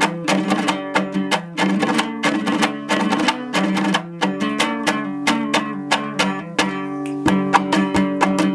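Instrumental music on a plucked string instrument, strummed in quick, even strokes over steady low held notes: the opening of a Hazaragi folk song.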